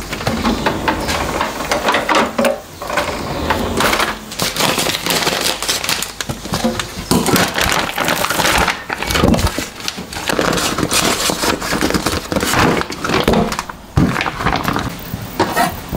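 Thick vacuum-pack plastic crinkling and rustling as raw pork back ribs are pulled out of their bags, with a few dull knocks of the meat landing in a stainless steel sink.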